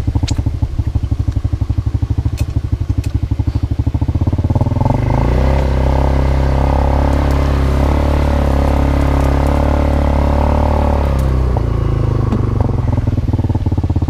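A quad bike's (ATV's) engine running with a fast, even low throb as it pushes through tall grass and brush. It gets louder and fuller from about four and a half seconds in until about eleven seconds, as it is given more throttle, then drops back.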